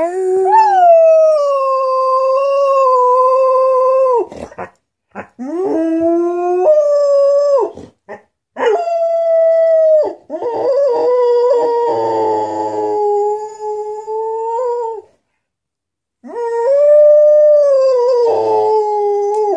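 Greyhound howling: four long howls with short breaks between, each holding a fairly steady pitch and dropping off at the end.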